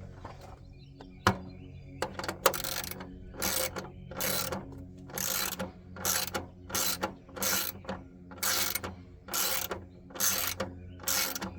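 Hand ratchet tightening 10 mm bolts: a long series of short rasping pawl-click strokes, about one every two-thirds of a second, starting about two seconds in, as the bolts are run down snug.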